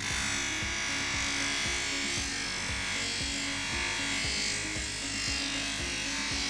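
Rusted steel pliers held against a spinning grinding wheel on a motor-driven shaft, a steady high grinding hiss as the rust is ground off. The grinding starts abruptly at the start.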